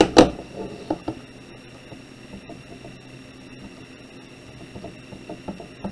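Keys of a Casio scientific calculator being pressed: scattered faint clicks after a sharper knock at the start, over a steady electrical hum.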